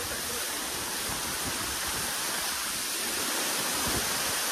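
Waterfall pouring down close by: a steady, unbroken rush of falling water.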